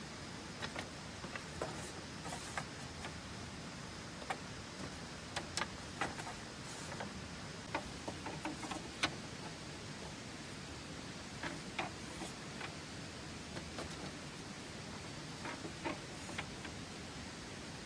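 Steady rain hiss with scattered, irregular sharp ticks and clicks, never more than a few a second.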